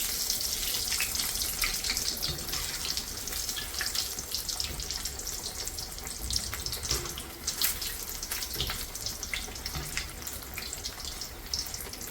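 Batter-coated bread bajji and egg bajji deep-frying in hot oil: a steady sizzle with scattered pops and crackles.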